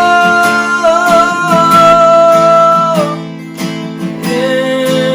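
Worship band music: acoustic guitar strumming with a long sung note held until about three seconds in, then the band carrying on without the voice.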